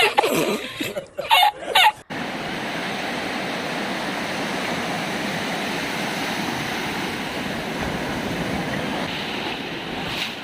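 Short bursts of voices for about two seconds, then a sudden cut to steady ocean surf washing.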